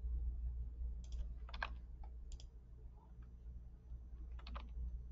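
A handful of faint, short clicks from a computer mouse and keyboard being worked, some in quick pairs, over a low steady hum.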